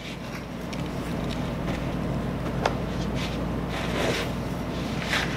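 Steady electrical hum and fan noise from running shop equipment, with faint rustles and a small click as the MIG gun and its cable are handled.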